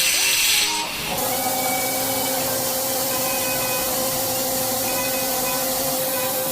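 Engine-block production machinery running steadily: an even hiss with a constant hum. A louder, higher hissing fills about the first second before cutting to the steady machine sound.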